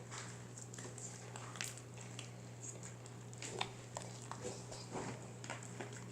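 Fluffy slime being kneaded by hand while shaving cream is worked in, making irregular small squishes and sticky clicks. A steady low hum runs underneath.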